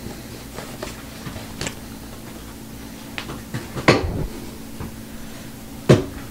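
Scattered light clicks and taps of packaging being handled on a tabletop, with two louder knocks about four and six seconds in, over a low steady hum.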